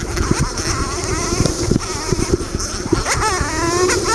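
KTM 200 XC-W two-stroke dirt bike engine revving while ridden over rough trail, its pitch climbing sharply about three seconds in. Many short knocks and buffets hit the microphone over the engine.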